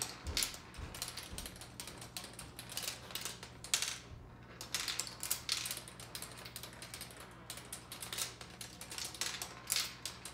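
Balls dropping through a Turing Tumble marble computer: a quick, irregular run of plastic clicks and clacks as they hit the ramps and flip the bits, with a brief lull about four seconds in.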